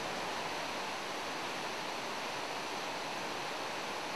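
The Rhine Falls roaring: a heavy mass of white water crashing over and around the rocks, an even, unbroken rushing noise.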